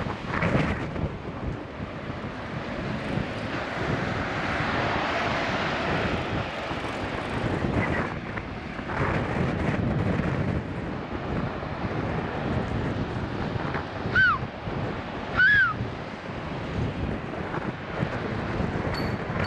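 Wind rushing over the microphone while cycling, with motor traffic passing close by, swelling and fading. About three-quarters of the way through, two short high squeals a second or so apart, each bending up and then down in pitch.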